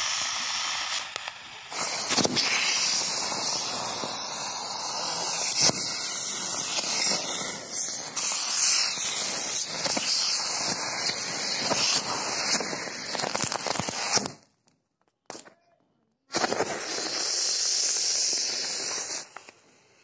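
Rocket fireworks strapped to a ceiling fan's blades firing together: a dense, steady hiss with scattered sharp pops. It cuts off about 14 seconds in, leaves near silence for about two seconds, then comes back for about three seconds before dying away near the end.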